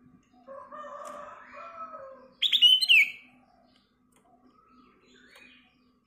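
Black-crested bulbul singing. A warbling phrase comes first, then a loud, brief burst of sharp high notes ending in a falling whistle about two and a half seconds in, and a few faint notes near the end.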